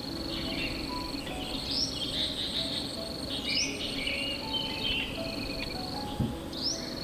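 Forest ambience: an insect trills steadily on one high pitch while a songbird repeats short rising phrases every couple of seconds. A soft low knock sounds near the end.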